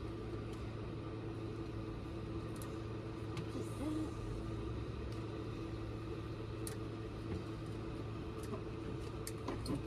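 A steady low mechanical hum with a couple of held tones, like a small motor or pump running, with a few faint clicks over it.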